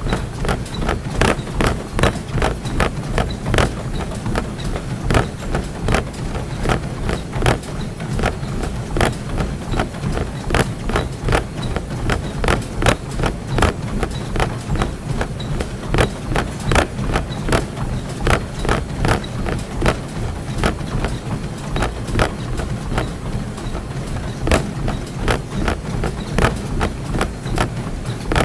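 Running footfalls on a treadmill: even thuds at about three a second over the steady hum of the treadmill's motor and belt.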